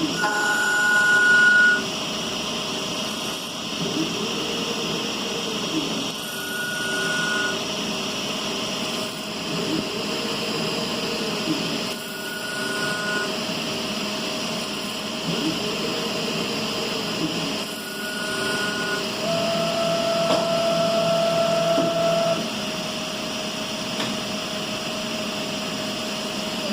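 CNC lathe running an automatic machining cycle: a steady machine hum with a short high tone and a rising-then-falling whine that repeat about every six seconds, as the spindle and live tool speed up and slow down. Past the two-thirds mark a louder steady whine holds for about three seconds.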